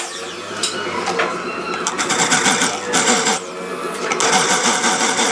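Cordless drill running, its twist bit cutting into a metal pipe in two grinding spells, the motor speed going up and down with the trigger.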